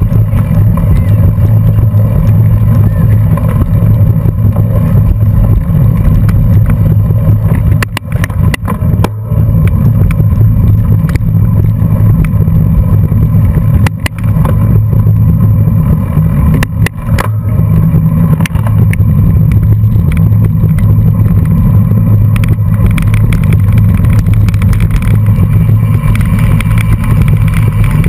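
Steady, loud low rumble of wind and road noise on a bicycle-mounted camera while riding in a race pack, with a few brief knocks where the sound dips for a moment.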